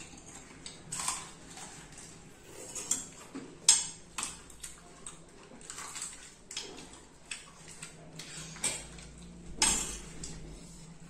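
Metal spoons clinking and scraping in steel bowls while crisp pani puri shells are cracked open and filled, heard as irregular taps and clicks, with a louder one a little under four seconds in and another near ten seconds.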